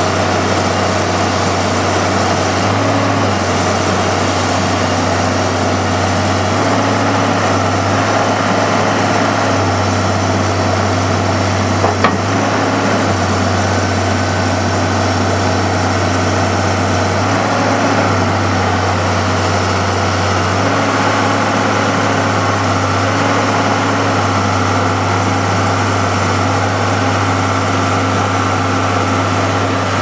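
Al-Jon 400 logger baler's Cummins four-cylinder diesel engine running steadily while the machine works, its low hum stepping up and down in level every few seconds. A single sharp click about twelve seconds in.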